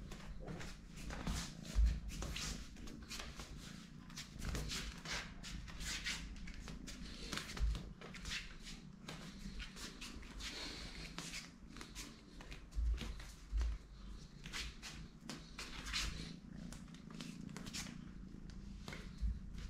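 Kitten purring close up, a steady low rumble, with frequent soft rustles and clicks and several low thumps scattered through.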